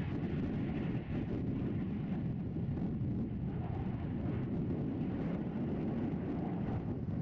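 Steady low rumble of aircraft engines, with no clear pitch or change.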